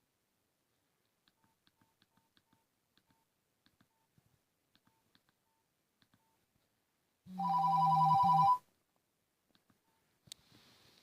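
Nokia 5200 mobile phone with faint keypad clicks and short quiet key beeps, about a dozen over several seconds, as its menu is stepped through. Then it plays a loud, steady two-pitch electronic tone from its speaker for just over a second, which stops abruptly.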